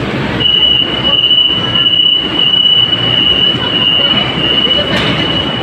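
LRT-1 light-rail train at the platform giving a steady high-pitched whine for about six seconds, over the station's low rumble, with a short click near the end.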